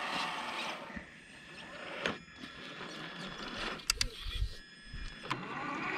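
Traxxas TRX4 1/10-scale RC crawler's electric motor and gearbox whining as it climbs, its tyres scrabbling on dry dirt and loose stones, with a few sharp clicks about four seconds in.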